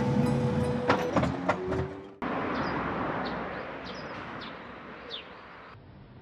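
A vehicle's engine running with a steady hum and a few sharp clicks, cut off abruptly about two seconds in. Then a quieter outdoor background with several short bird chirps, dropping near the end to a faint quiet room.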